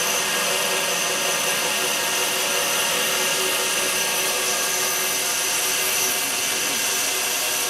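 CNC wire foam-cutting machine running while its wire cuts through a polystyrene foam slab: a steady mechanical drone with several high whining tones that hold constant.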